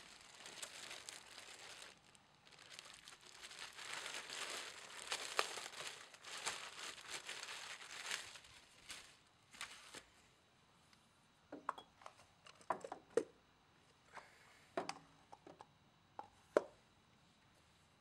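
Plastic packaging bag crinkling and tearing for about nine seconds as a new replacement mower wheel is unwrapped, followed by a scattering of light clicks and knocks from handling the parts.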